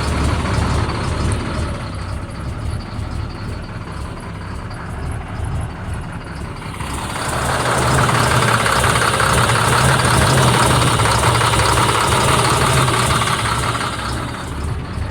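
Caterpillar C7 ACERT inline-six diesel engine running. About seven seconds in it speeds up and gets louder, holds, then drops back near the end. The engine is losing power and making a strange noise, which the mechanic traces to a misfiring number 5 injector.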